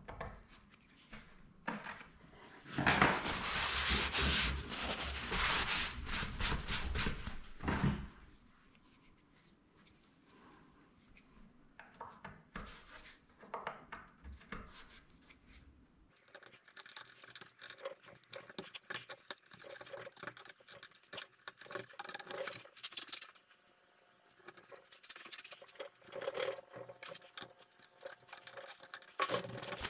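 Metal pick scraping and picking excess goop from around a small window opening in plywood. There is a louder run of steady scraping for several seconds near the start, then a pause, then lighter, scattered scratches.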